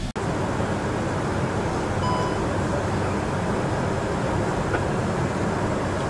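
Steady cockpit noise of an Airbus A400M in flight, the drone of its turboprop engines and airflow, with a short high electronic tone about two seconds in.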